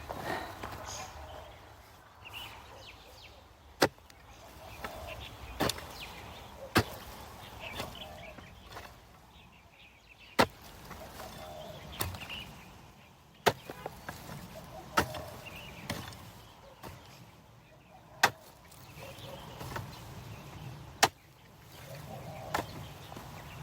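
A series of about ten sharp single knocks or strikes, spaced unevenly one to three seconds apart, with fainter sounds in between.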